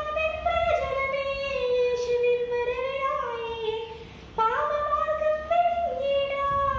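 A young girl singing a Malayalam Christian devotional song unaccompanied, in long held notes that slide between pitches, with a brief breath pause about four seconds in.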